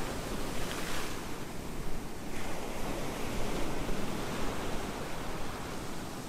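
Ocean surf washing onto a beach: a steady rush of breaking waves, a little louder in the first second.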